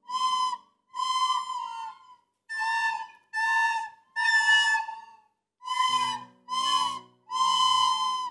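A group of children playing recorders together: a slow tune of about eight separate held notes, with short breaks between them.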